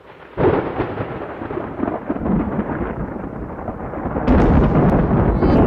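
Thunder rumbling, swelling in about half a second in, with a louder, sharper crash about four seconds in.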